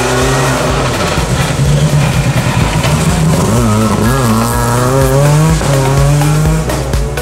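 Rally car engine at full throttle on the approach, its pitch falling and rising through gear changes. About halfway through it wavers up and down as the car slides around a hairpin bend.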